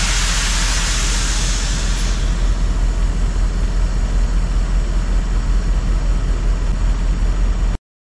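Semi truck's diesel engine running steadily with a deep rumble and a hiss of air over it, the hiss loudest in the first couple of seconds. The sound cuts off suddenly near the end.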